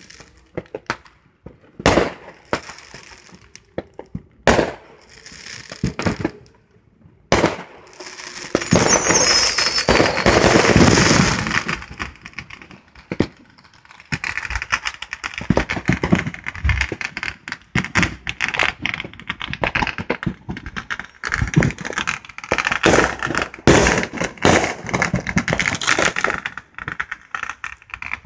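Fireworks going off: several separate sharp bangs with crackling tails, then a long stretch of dense crackling and popping. A brief falling whistle comes about nine seconds in.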